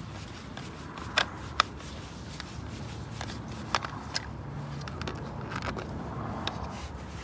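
Screwdriver backing a Phillips-head screw out of a photoelectric gate beam's cover: light scraping and handling with a few sharp clicks.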